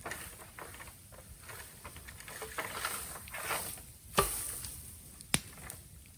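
Bonfire of raw bamboo crackling, with scattered small snaps and two sharp pops in the second half.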